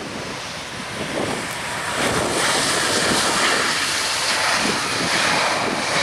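Airbus A320 jet engines running on the landing rollout, a rushing jet noise that builds about two seconds in and then stays loud, typical of reverse thrust slowing the aircraft after touchdown. Wind buffets the microphone.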